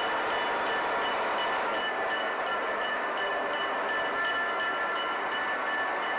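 A locomotive running in a rail yard: a steady rushing noise, with faint high metallic ticks repeating about three times a second.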